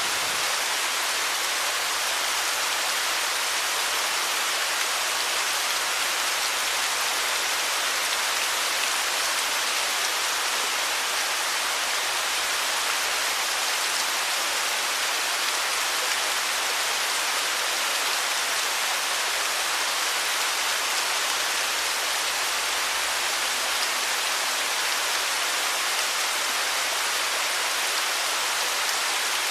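Running water: a steady, even, bright rushing hiss with no separate events.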